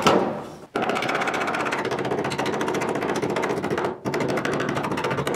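Pneumatic air chisel hammering rapidly on the car body's sheet steel, cutting out rusty metal. It runs in two long bursts with a brief stop about four seconds in.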